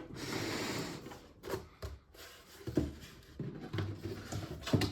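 Double-wall cardboard being handled and fitted: a scraping slide for about the first second, then a few dull knocks and thumps.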